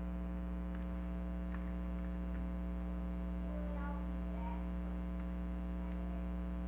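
Steady electrical hum, with a few faint, scattered small clicks of a lock pick working the pins of a pin-tumbler lock.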